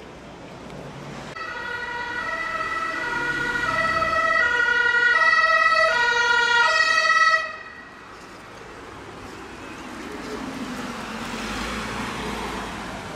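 Two-tone German emergency siren (Martinshorn) alternating between its two pitches, growing louder as the vehicle nears, then cutting off suddenly. A few seconds later an ambulance passes close by, its engine and tyre noise swelling and then falling away.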